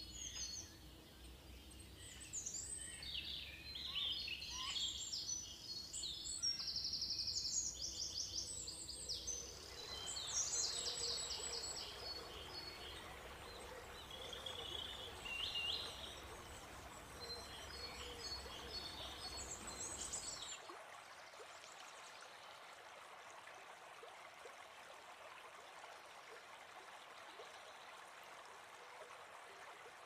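Rainforest ambience of birds chirping and trilling in quick high runs over a steady rush of running water. About two-thirds of the way through, the birds cut out suddenly, leaving only the water.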